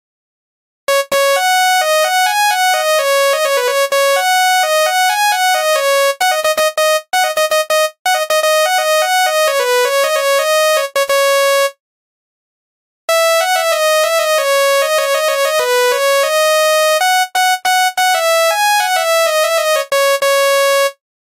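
Telolet basuri bus horn playing a tune: a single line of quick notes in two long phrases, with a pause of about a second between them.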